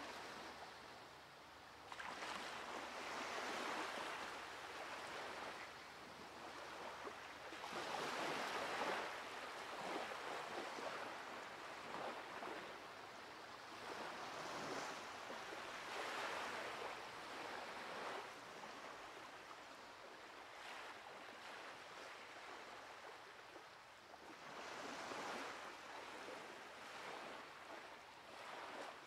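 Surf washing up a sandy beach: a soft hiss of waves that swells and fades every few seconds.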